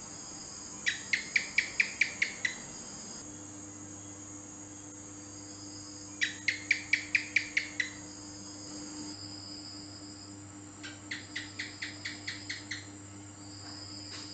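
House gecko (cicak) calling in three bouts of eight to nine quick chirps each, the last bout fainter, over a faint steady hum.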